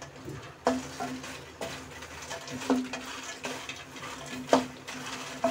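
Wooden spatula stirring phool makhana (fox nuts) roasting in an aluminium kadhai: the puffed seeds rustle and scrape around the pan, and the spatula knocks against the pan's sides about five times, each knock with a brief metallic ring.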